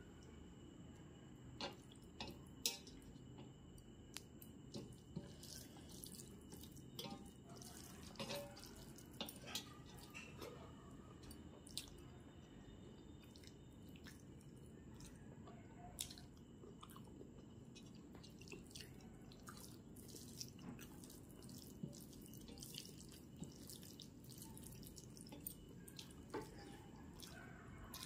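Close-miked eating sounds, faint: scattered wet clicks and smacks of mouth and chewing, with fingers squishing pulao on a plate, over a steady low hiss.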